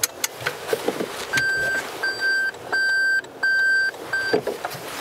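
A car's in-cabin warning beeper sounds five evenly spaced high beeps, each about half a second long, starting about a second in. A few sharp clicks come just before the beeps.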